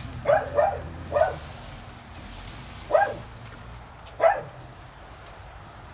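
A dog barking five times: three quick barks close together, then two single barks about a second apart.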